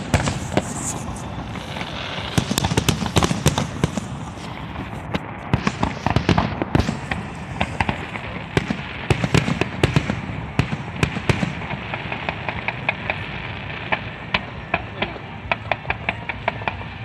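Aerial fireworks display by Macedos Pirotecnia: shells bursting in volleys of sharp bangs, thickest in the first few seconds and again around the middle. Near the end they give way to lighter, rapid crackling.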